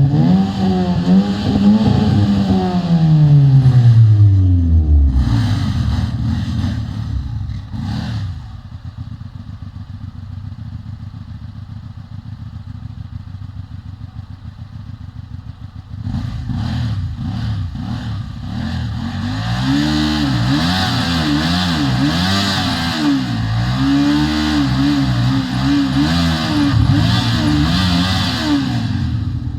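Hyosung GT250R motorcycle's 250 cc V-twin engine being revved. Its note falls steadily over the first few seconds and goes quieter for a while. It then rises and falls again and again in a run of blips.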